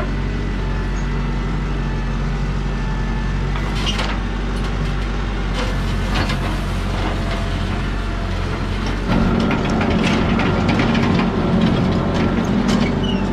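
New Holland T2420 compact tractor's diesel engine running steadily under load while its rear box scraper drags through packed manure and hay, with occasional clanks and rattles from the scraper. The engine gets louder about nine seconds in.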